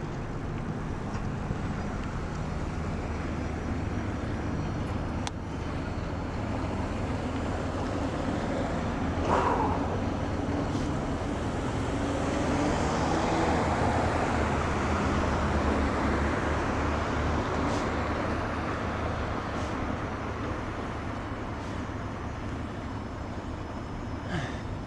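Steady road rush of a bicycle ride along a street with car traffic. A vehicle passes about halfway through, louder for a few seconds.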